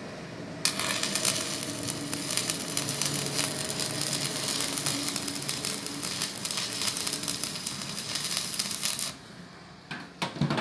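Stick (manual metal arc) welding: the electrode's arc strikes about a second in and crackles and sizzles steadily as a bead is run, then breaks off suddenly near the end.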